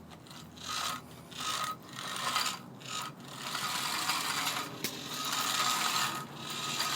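Small electric motor and gears of a remote-control toy tow truck whirring in spurts, starting and stopping several times, with a longer run in the second half.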